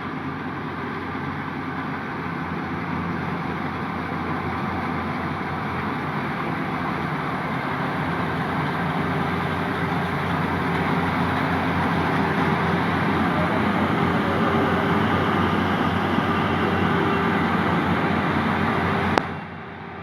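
Yanmar YH850 combine harvester running steadily, a dense engine and machinery noise that grows louder over the first dozen seconds, then drops away suddenly about a second before the end.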